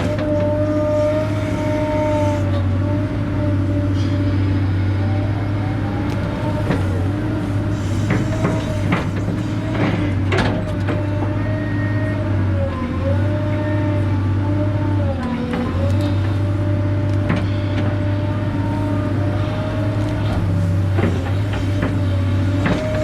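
Excavator's diesel engine running under load, with a steady whine that sags and recovers several times as the hydraulics are worked. Occasional knocks and clanks come from the digging.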